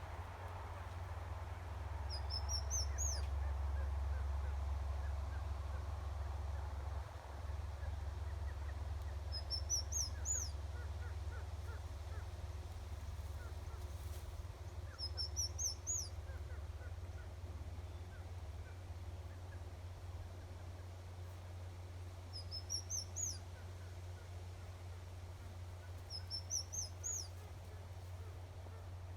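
Baby bird calling for its parent: five short bursts of quick, high-pitched rising chirps, a few seconds apart, over a steady low rumble.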